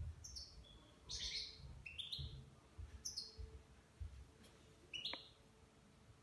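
European goldfinch giving about five short, high chirping calls, several of them rising in quick steps, with soft low thumps beneath.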